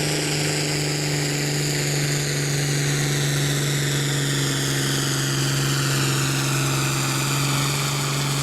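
Farm tractor's engine running hard at steady high revs while pulling a weight-transfer sled, with a high whine that sinks slowly in pitch.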